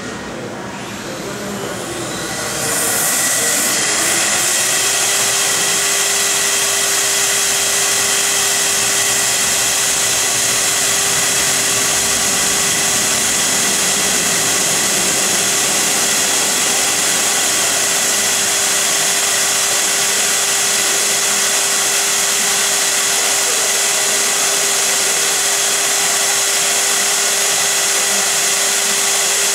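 CNC router spindle spinning up, its whine rising in pitch over the first few seconds, then running at a steady whine over a loud, even hiss.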